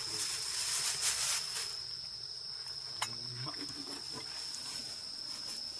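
Crickets chirring in one steady, high, unbroken tone, with a noisy hiss over the first second and a half and a single sharp click about three seconds in.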